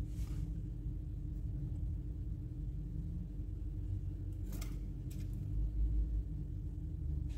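Steady low hum, with a few brief, faint scrapes and clicks as fingers handle a small GPS LCD panel and its thin backlight ribbon cable. A dull low thump comes about six seconds in.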